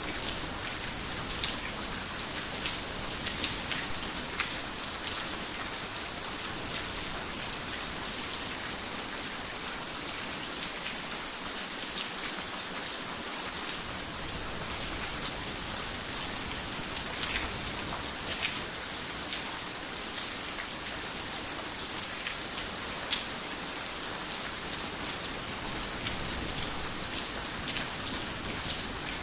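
Heavy rain falling steadily on a roof and surfaces, a dense hiss with many individual drops tapping through it.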